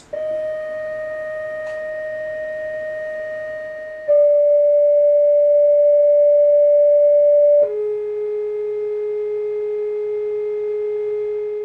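Chladni plate, a square metal plate shaken by a driver underneath, sounding one steady pitch that steps down twice, about four and about seven and a half seconds in. The middle pitch is the loudest. Each pitch sets the plate vibrating in a different pattern of nodes and antinodes.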